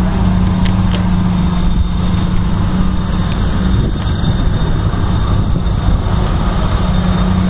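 Engine running at a steady idle: an even, unbroken low drone with rumble beneath it.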